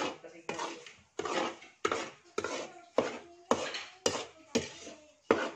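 Long metal spatula scraping and knocking against a large metal wok, about two strokes a second, each stroke leaving a short metallic ring. It is the steady stirring of dry flour as it toasts, kept going so the flour does not burn.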